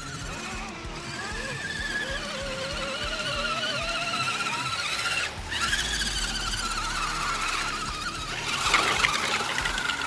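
Electric motors and gearboxes of several 1/10-scale RC crawler trucks whining, the pitch wavering up and down with the throttle. A rougher splashing burst comes near the end as a truck drives through the muddy puddle.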